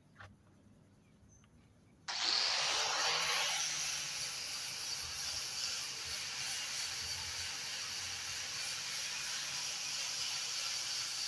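Angle grinder with a wire brush switched on about two seconds in, then running steadily as it buffs and cleans the surface of a weathered wooden slab, with a loud hissing scour.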